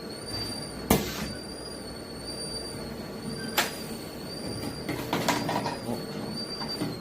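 Makgeolli bottle-filling machine running: a steady high, slightly wavering whine over a low hum, with sharp mechanical knocks and clacks at irregular times, the loudest about a second in and a cluster about five seconds in.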